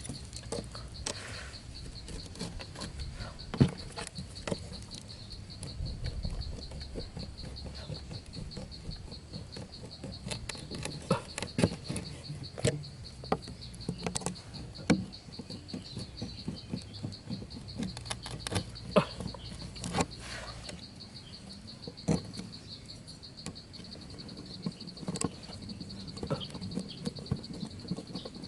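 A steady, high, finely pulsing insect trill runs throughout. Over it come many scattered sharp clicks and light scrapes, the loudest about three and a half seconds in and at intervals between about 11 and 20 seconds.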